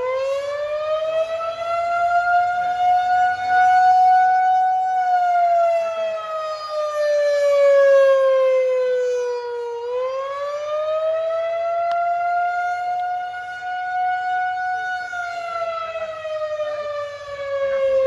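Federal Signal 2001-130 rotating dual-tone electromechanical warning siren sounding the attack signal, very loud. Its chord climbs for about three seconds, holds, and slides down for about five, then climbs again about ten seconds in, in a slow rising and falling wail.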